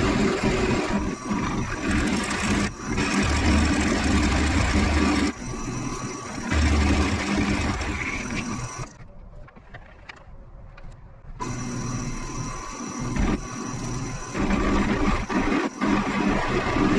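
Bauer 17-inch variable-speed drill press running, motor humming steadily while the bit cuts a 5/8-inch hole, with rough chatter from stepping up to the big bit over a pilot hole. The sound drops out for a couple of seconds about halfway through, then the drilling resumes.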